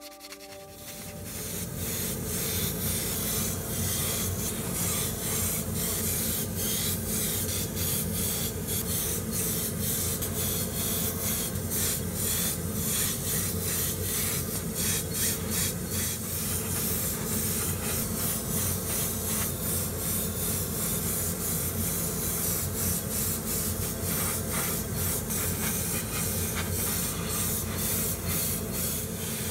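Airbrush spraying surfacer and paint onto small plastic model parts: a steady hiss of compressed air starting about a second in, over a steady low hum.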